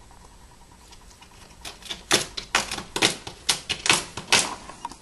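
A Pomeranian gnawing at the painted corner of a wall: a fast, irregular run of sharp clicks and scrapes from its teeth on the wall, starting about a second and a half in and stopping shortly before the end.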